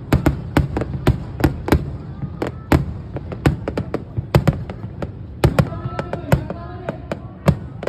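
Fireworks bursting one after another in rapid, irregular succession, several bangs a second, each with a heavy low thump.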